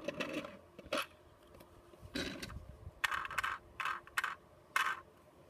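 A Tomy Plarail plastic toy train coach being handled: several short scrapes and clicks of plastic as it is moved on a wooden table and picked up and turned over in the hands.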